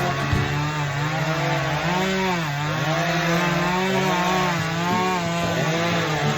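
Two-stroke chainsaw running at high revs while cutting through wood; its engine pitch sags and recovers repeatedly as the chain bites and loads up in the cut.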